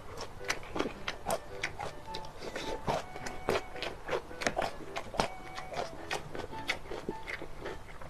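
Close-up wet chewing and lip smacking as a man eats soft mouthfuls of mapo tofu and rice: many short, irregular clicks and squelches.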